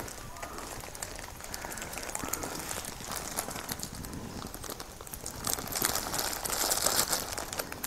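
Plastic bag of a mushroom bed crinkling and rustling in the hands as mushrooms are twisted off it, with a louder stretch of rustling in the last two seconds.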